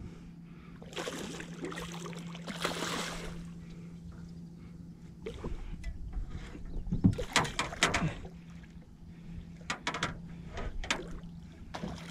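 Hooked redfish thrashing and splashing at the surface beside a skiff, in several bursts, over a steady low hum.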